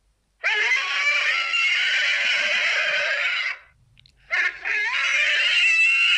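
Custom creature vocal sound effect: two long, high, pitched cries. The first lasts about three seconds; the second starts about four seconds in.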